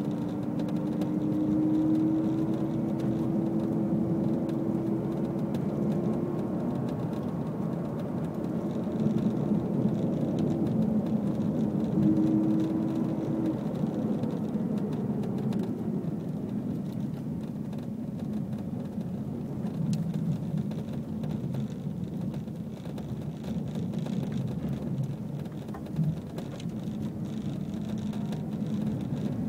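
Subaru STI driving with steady road and drivetrain noise and a distinct hum that climbs slightly in pitch over the first six seconds, stops, then returns briefly a little before halfway. The owner suspects the hum comes from the rear differential.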